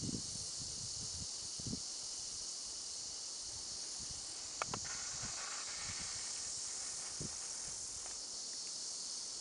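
Steady high-pitched outdoor hiss, with a few faint taps about two, five and seven seconds in.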